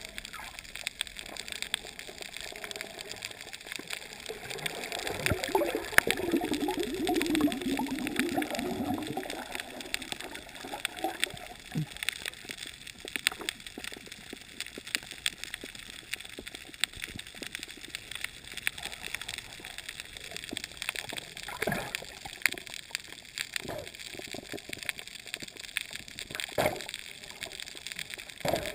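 Underwater sound picked up by a GoPro in its waterproof housing while snorkeling over a coral reef: muffled water gurgling with many scattered sharp clicks and crackles. A louder, wavering gurgle rises from about five seconds in and fades out by about ten seconds.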